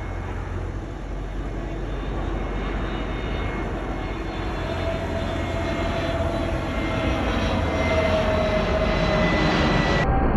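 Airbus A321 jet airliner on landing approach, its engines' rumble and faint whine growing steadily louder as it comes nearer.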